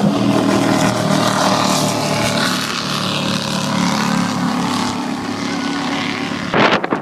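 Big motorboat engines running steadily, a drone of several low tones with water and hull noise. About six and a half seconds in, wind gusts start buffeting the microphone.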